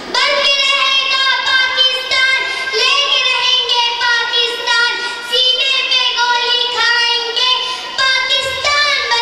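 A young girl's voice through a microphone, delivering lines in a sung, chant-like style with long held notes.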